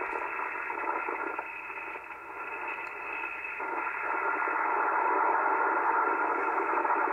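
ICOM IC-751A receiver's audio in sideband mode, playing a signal-generator carrier as a scrambled, hissy hash instead of a pure tone. It grows louder about halfway through. The hash comes from the PLL failing to lock and hunting in frequency, because its voltage-controlled oscillators are out of adjustment.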